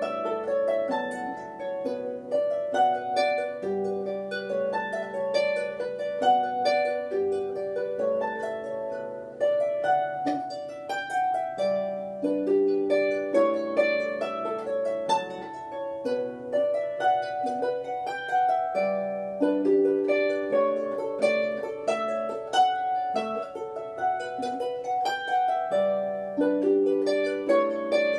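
Wooden lever harp played solo: a plucked melody over a lower bass line, with each note ringing on into the next.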